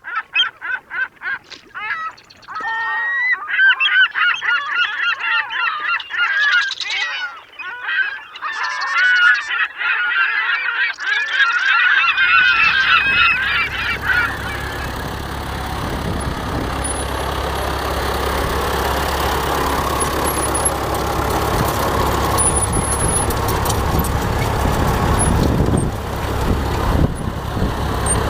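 A flock of large birds calling loudly and repeatedly, many overlapping calls, for about the first half. About halfway through, a steady low engine rumble comes in and carries on to the end.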